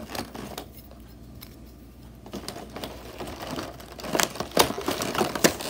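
Foil-covered cardboard box being torn and pried open with a metal utensil: scattered crackles, scrapes and sharp clicks, quieter for a moment about a second in, then busier again toward the end.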